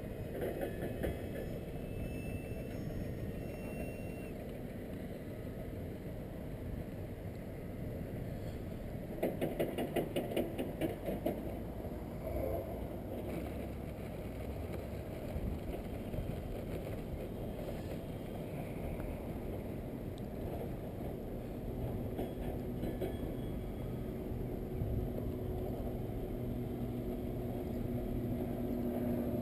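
Wind rumbling on the microphone, over the faint drone of a radio-controlled model airplane's motor, which grows steadier and louder near the end. A few seconds of rapid clatter about nine seconds in.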